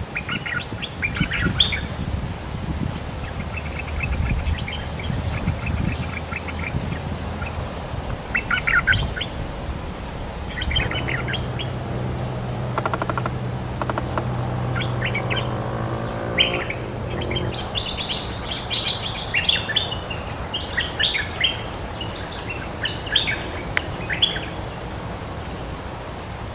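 Bulbuls calling back and forth in short bursts of quick chirps: a caged decoy and a wild territorial bird answering it. The bursts come more thickly in the second half. A low engine hum rises and fades through the middle.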